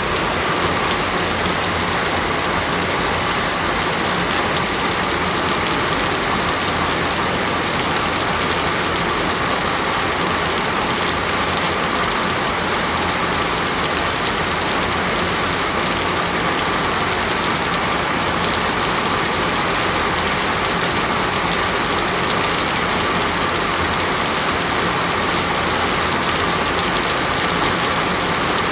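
Steady rain falling: an even hiss with many fine drop ticks, unchanging throughout.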